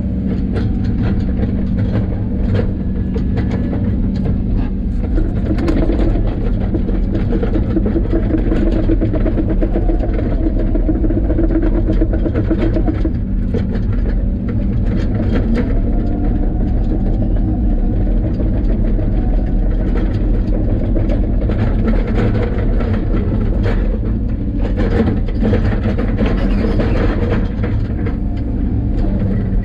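Diesel engine of a tracked construction machine running steadily under load, with clanking and rattling from the working machine. The engine note shifts about 13 seconds in and again near 25 seconds as the load changes.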